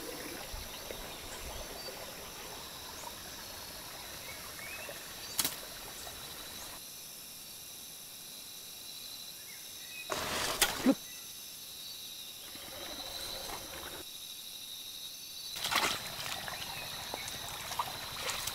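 Forest ambience: a steady high insect drone, broken by a few sharp snaps. The loudest is a quick double crack near the middle, as a bamboo fishing bow is drawn and loosed.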